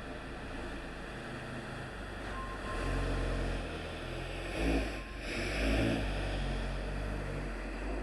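A machine's engine running, its low rumble swelling about three seconds in and surging twice near the middle.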